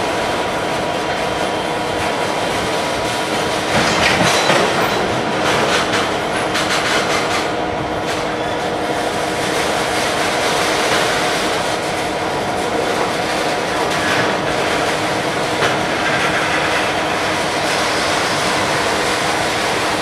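Freight wagons of two trains passing each other and rolling by close up. A steady rolling rumble carries a clatter of wheels over the rail joints, loudest from about four to eight seconds in, and a thin, steady wheel squeal.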